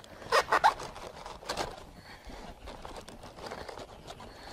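Crisp cabbage leaves crinkling and rustling as a hand pushes in under the wrapper leaves toward the stalk, with a louder burst of crinkling about half a second in and another about a second and a half in.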